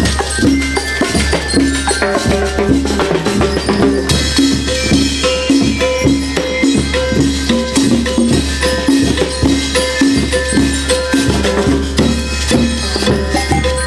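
A school rhythm band plays a lively dance number: drum kits, congas and a bass drum keep up a dense, steady beat under a short pitched figure repeated over and over.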